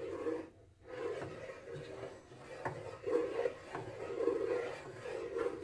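A wooden spoon scrapes around a stainless steel saucepan, stirring a thick roux-and-milk sauce in repeated strokes about once a second, with a short pause near the start.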